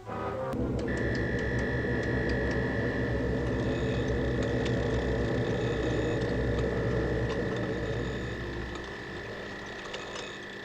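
Science-fiction robot sound effect: a steady electronic machine hum over a deep rumble, with a single high tone held from about a second in and faint scattered ticks. It eases off a little near the end.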